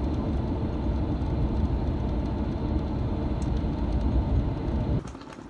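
Steady low rumble of a coach bus driving along the road, engine and tyre noise heard from inside the passenger cabin; it cuts off suddenly near the end.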